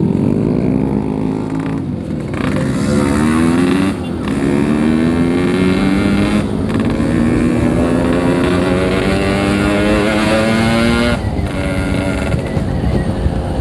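Yamaha RX-King 135cc two-stroke single-cylinder engine accelerating hard up through the gears. Its pitch climbs in each gear, with quick shifts about 2, 4 and 6.5 seconds in, then a long pull before the throttle is eased off near the end.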